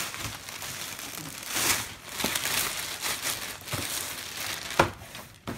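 Thin plastic shopping bag crinkling and rustling as a cardboard shoebox is pulled out of it, with two sharp knocks near the end, the first the loudest.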